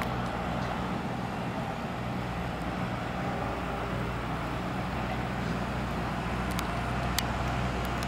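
A departing express train hauled by an ALCO WDM-3D diesel locomotive, heard from a distance: a steady low engine drone and rumble as the locomotive works under load, accelerating away.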